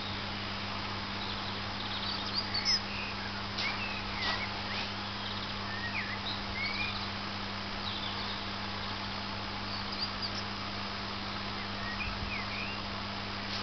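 Steady hiss of a lawn sprinkler's water spray, with a low steady hum underneath. Small birds chirp and call over it, most busily a few seconds in.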